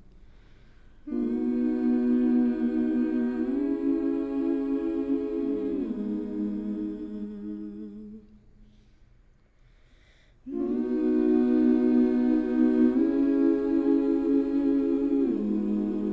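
A cappella vocal music: layered voices humming sustained chords that shift in steps. It comes in two long phrases with a near-silent gap of about two seconds in the middle.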